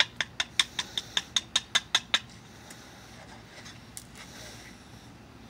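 About a dozen quick, light taps, roughly five a second, of a copper-tipped billet against the edge of a stone being knapped, stopping after about two seconds. One faint tap follows near the end.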